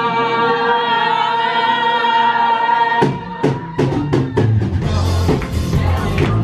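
Background music: a long held sung chord that breaks off about three seconds in, when a drum kit comes in with a steady beat of kick and snare hits.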